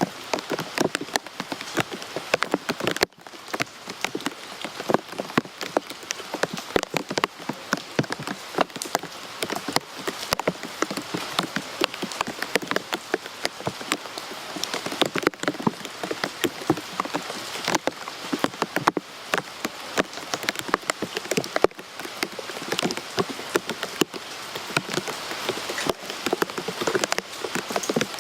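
Steady rain, with many close, sharp individual drops pattering on a surface.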